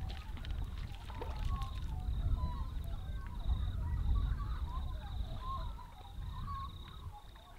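Wind rumbling on the microphone over many short, chattering bird calls, with a steady high pulsing trill running under them and a few small handling clicks near the start.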